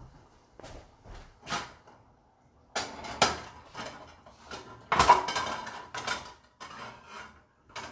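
Metal pots and pans clattering as they are shifted around on a stovetop: scattered knocks, a burst of clatter about three seconds in, and a loud clank about five seconds in that rings briefly.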